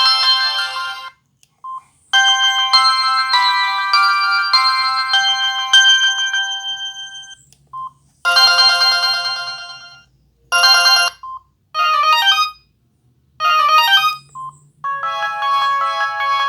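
Samsung SGH-T459 Gravity mobile phone playing its built-in ringtones: about six short electronic melodies one after another, each cut off abruptly after a second or a few seconds, with short single beeps in some of the gaps.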